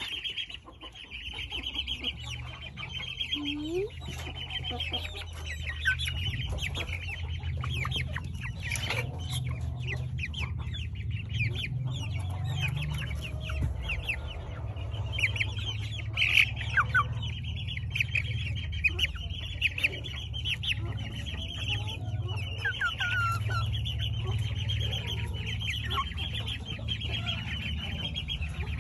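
A group of young chickens (Cochin and frizzle chicks) peeping and cheeping in fast, continuous chatter, with a few louder gliding calls. A steady low rumble runs underneath.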